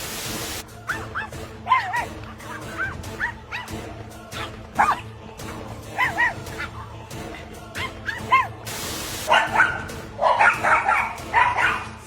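Dog barking and yipping repeatedly in short high calls, with a quick flurry of them near the end.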